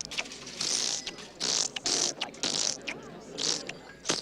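Human mouth sound effects imitating noisy fast-food eating: a run of short hissing, crackling bursts, like wrappers rustling and food crunching, a couple each second.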